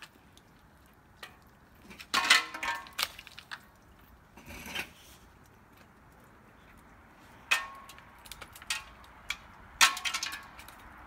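Icicles being knocked off a roof edge with a snow shovel: three main crashes, each trailing into a clatter of ice pieces shattering and tinkling down, with smaller knocks and clinks between.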